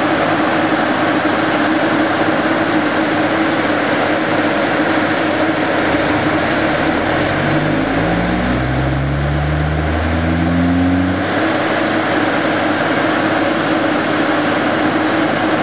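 Vibroseis seismic trucks running their diesel engines steadily. From about six seconds in, the vibrator plates shake the ground in a sweep: a low hum that rises steadily in pitch for about five seconds, then stops.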